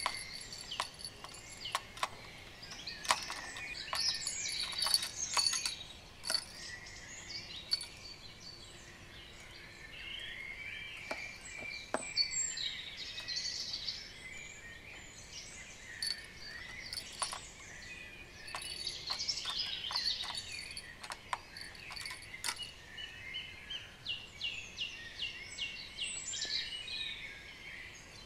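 Several songbirds singing and chirping continuously, with scattered sharp clicks and knocks.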